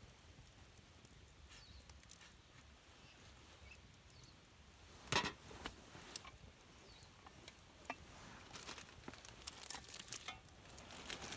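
Gear being handled: scattered crinkling and rustling with small clicks, a sharp knock about five seconds in, and busier crinkling near the end.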